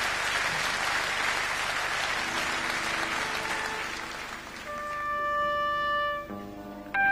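Audience applause fades away over the first few seconds as electric guitar comes in with long, held, ringing notes that swell and sustain without plucked attacks, moving to new chords near the end.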